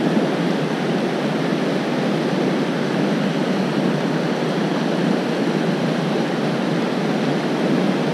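River water rushing steadily over rocky rapids and riffles: an even, unbroken rush.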